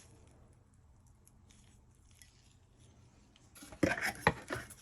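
Quiet room tone, then about three and a half seconds in a quick cluster of clicks, knocks and rustling as small objects are handled.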